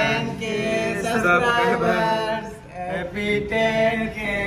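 Men's voices chanting together in long, drawn-out notes as the cake is cut.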